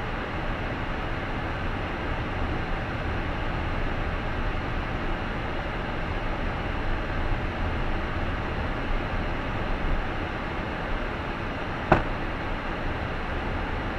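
Steady road and engine noise of a car driving, with one sharp knock about twelve seconds in.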